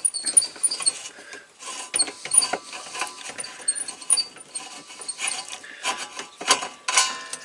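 A screwdriver at work on a camper's gas fridge: irregular small metallic clicks and scrapes as its screws are undone.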